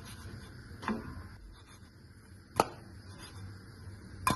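A kitchen utensil knocking against a frying pan while a pancake is turned: three short sharp knocks, a softer one about a second in, then two sharper ones a second and a half apart.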